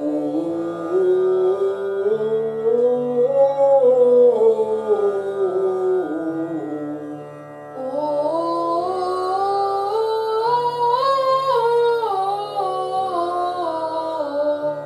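A man singing a seven-note vocal exercise on a vowel: the voice climbs step by step up the scale and back down, twice, with a short break between the two runs. A steady instrumental drone holds underneath.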